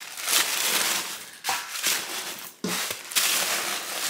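Crinkling and rustling from a quilted leather drawstring bag being handled and opened, in several irregular bursts, with a soft knock about two and a half seconds in.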